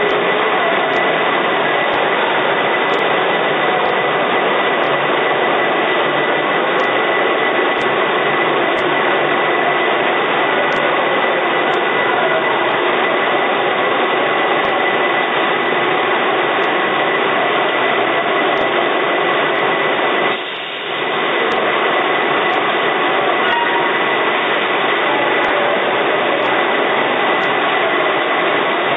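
Aseptic drum-filling line and its roller conveyors running: a loud, steady machine noise with a constant high whine through it. The noise dips briefly about two-thirds of the way through.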